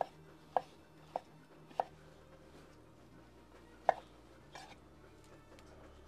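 Chef's knife slicing a grilled peach on a wooden chopping board: the blade knocks the board about every half second for the first two seconds, then twice more about four seconds in.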